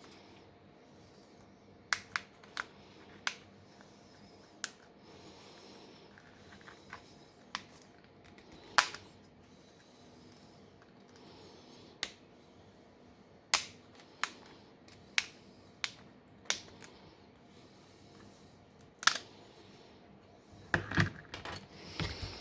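Small sharp clicks and taps of tools and parts being handled on a smartphone during a teardown. They come singly and irregularly, with a burst of louder knocks near the end.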